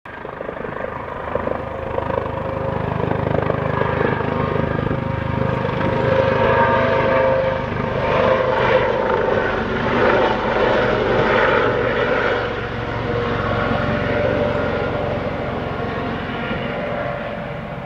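A U.S. Coast Guard Eurocopter AS365 Dauphin helicopter passing overhead: a twin-turbine whine over rotor noise. It builds over the first few seconds, is loudest in the middle as it comes over, and fades as it flies off.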